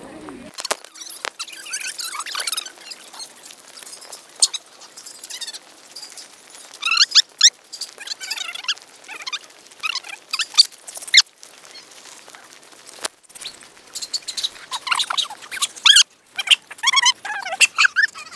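Clusters of short, high-pitched squeaks and chirps from animals, with scattered light clicks and crunches of footsteps on a dry dirt trail.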